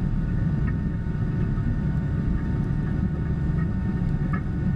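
Tractor engine running steadily while planting, heard from inside the cab as a constant low drone, with a few faint light ticks.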